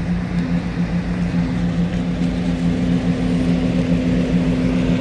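Fandis FF12A230UN AC cooling fan running steadily on 215 V mains: a constant low hum and whir. The fan is working normally.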